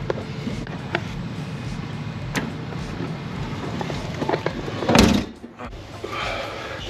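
A few light knocks, then a door shut with a loud thump about five seconds in, after which the steady background noise drops off.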